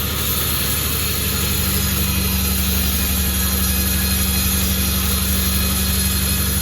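Sawmill machinery running steadily with a loud, even low hum and a constant hiss; the hum settles onto a steadier note about a second in.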